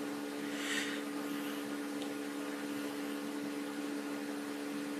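A steady low hum with even background hiss, with a faint brief rustle about a second in.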